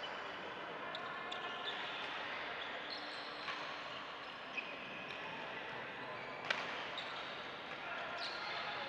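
Badminton rackets hitting shuttlecocks on several courts in a large, echoing hall: sharp pops scattered over a steady background hubbub, one hit louder than the rest past the middle. Faint distant voices.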